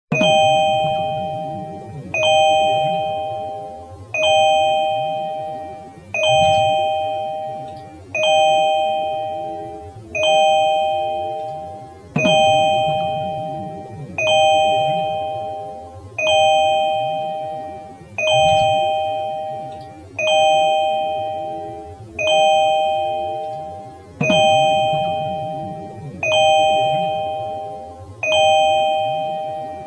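2015 Kia's door warning chime repeating about every two seconds. Each chime is a bell-like ding that fades before the next.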